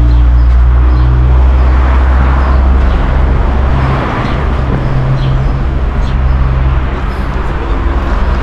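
A motor vehicle's engine idling close by: a loud, steady low hum.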